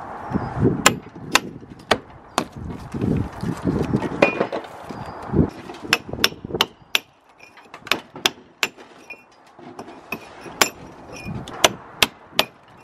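Lump hammer striking a steel stonemason's chisel, cutting damaged bricks and old mortar joints out of a brick wall: a run of sharp strikes at an uneven pace, with duller knocks between blows.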